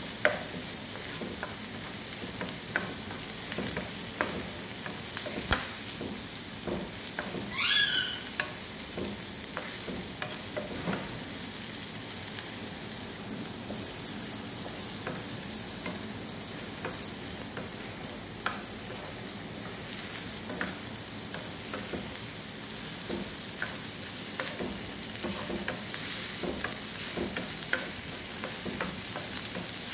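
Chopped onions sizzling in oil in a nonstick frying pan, stirred with a wooden spoon that scrapes and knocks against the pan again and again. A brief rising squeak about eight seconds in.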